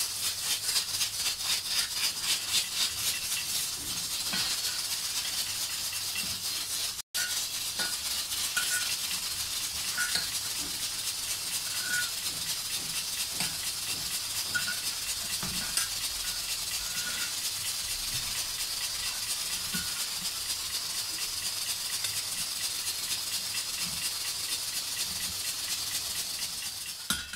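Steady hiss of a gas stove burner under a roti cooking on an iron tawa, with a rapid rattling crackle during the first few seconds.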